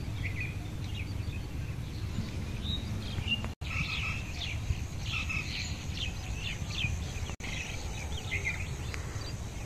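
Small birds chirping and twittering in short, high calls, busiest from about four seconds in, over a low steady rumble of outdoor background noise. The sound cuts out completely for an instant twice.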